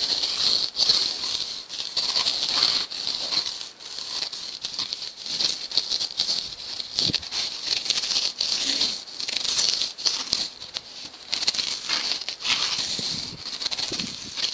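Hand rasp scraping and shaving an expanded polystyrene sheet, a dry scratching in quick repeated strokes as the foam is shaped into a boat hull.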